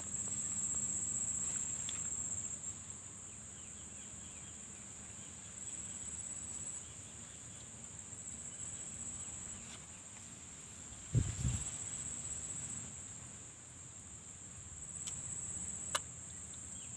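A steady high-pitched trill of insects, swelling and fading. There is a short low thump about eleven seconds in and a sharp click near the end.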